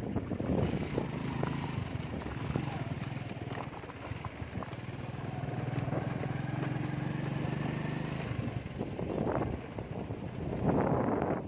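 Motorcycle engine running at a steady pace on a bumpy dirt road, with scattered knocks and rattles. The steady engine note fades about eight seconds in, and two louder rushes of noise follow near the end.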